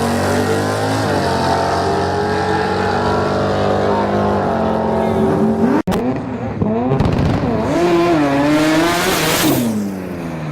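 Drag-racing car engines at full throttle, the pitch climbing and dropping back with each gear shift. An abrupt cut about six seconds in leads to another run, its engine rising and falling in pitch, with a burst of hiss shortly before the end.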